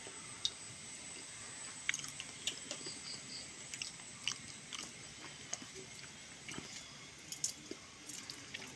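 Faint chewing and biting on roasted jackfruit seeds, with scattered small clicks and crunches.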